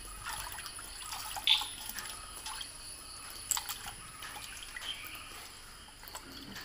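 Water splashing and dripping as hands rinse cut fish in a small bowl of water, with scattered small splashes and clinks; a louder splash comes about a second and a half in.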